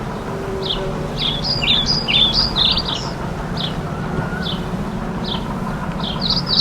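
Small birds chirping: short, high, downward-sliding chirps repeated about twice a second, broken twice by a quick flurry of overlapping chirps. A steady low hum runs underneath.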